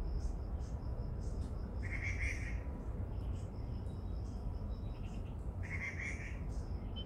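Birds calling outdoors: two louder calls, about four seconds apart, over a steady run of high, evenly pulsed chirping, with a constant low rumble underneath.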